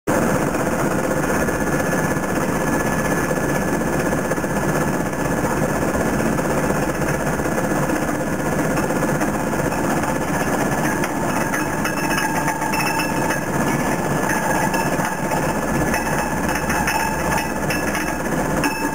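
Powerscreen Warrior 800 mobile screener running: its diesel engine and vibrating finger-screen deck make a steady, dense mechanical clatter as topsoil is screened. More small clicks and rattles come in from about the middle.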